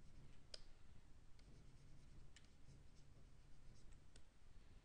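Near silence: room tone with several faint, scattered clicks from the computer input devices used to drive the sculpting software, the clearest about half a second in.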